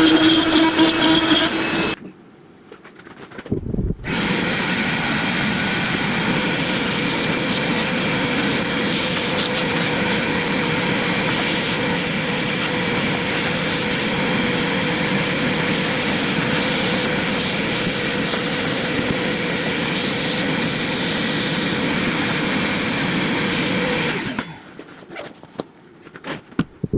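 CNC router spindle running and cutting into maple: a steady, loud whine-and-rasp of the bit in the wood that starts about four seconds in, holds even for about twenty seconds, then stops abruptly near the end.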